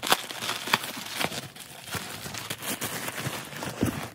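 Plastic packaging wrap crinkling and rustling as it is handled, in irregular crackles, with a dull knock near the end.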